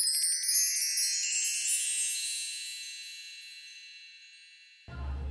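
Sparkle chime sound effect: a quick cascade of high, bell-like tinkles that rings on and fades away over about four seconds. Near the end, low room noise cuts in.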